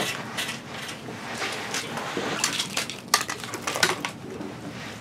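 Irregular clicks, knocks and rattles of fishing gear being handled as a hooked fish is reeled up through the ice hole, with one sharp click, the loudest, about three seconds in.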